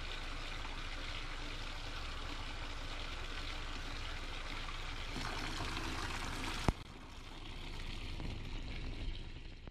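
Running water splashing into a tub, a steady rushing sound. It grows a little louder about five seconds in, then a sharp click comes and the water is quieter after it.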